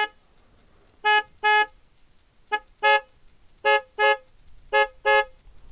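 Honda Hornet 900 motorcycle's loud horn being tested: about nine short blasts at one steady pitch, mostly in quick pairs.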